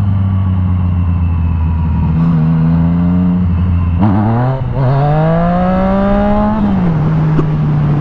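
Yamaha FZ-09's inline-three engine running at a steady pitch. About four and a half seconds in the revs dip briefly, then climb for about two seconds before falling back to a steady note: a first-gear wheelie attempt that doesn't lift high enough.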